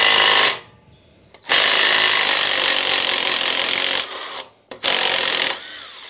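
Cordless impact driver hammering on the rotor-hub bolt that holds the chipper-shredder's rotor to the engine drive shaft, in three bursts: a short one at the start, a long one of about two and a half seconds, and a short one near the end, with the motor whirring down after each. The bolt breaks free and backs out.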